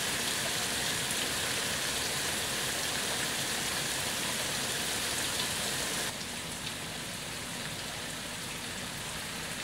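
Steady rain falling on grass, leaves and a shed roof, an even hiss of many drops. About six seconds in it turns a little quieter and duller, heard from indoors through an open window screen.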